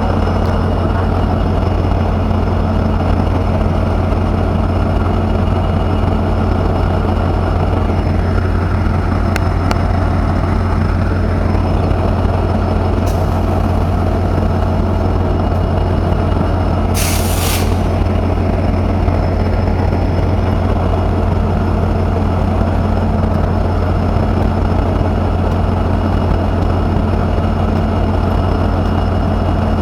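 WAP 7 electric locomotive humming steadily, a deep, even drone with no change in pitch. A short hiss of released air, about half a second long, cuts in a little past the middle.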